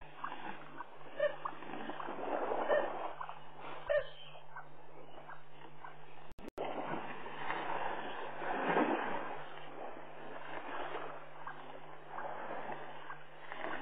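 Water splashing and sloshing as elephants move and drink in a muddy waterhole, with scattered short ticks, over a steady low hum.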